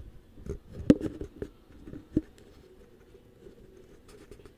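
Handling noise on a handheld camera: several knocks and scratchy rubs against its body over the first two seconds or so, the loudest about a second in, then only a faint steady background.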